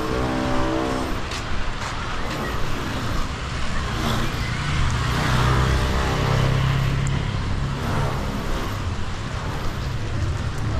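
Motorcycle engine running as it rides along rain-wet streets, its low drone shifting slowly in pitch under a steady hiss of tyres on wet pavement and rain.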